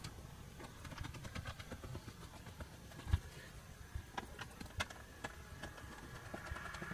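Faint handling noises from an upholstered dinette bench being searched: scattered small clicks and taps, with one louder low thump about three seconds in.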